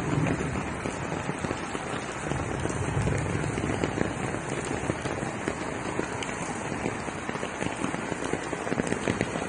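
Steady rain falling and hitting hard surfaces, a dense scatter of small drop ticks over an even hiss.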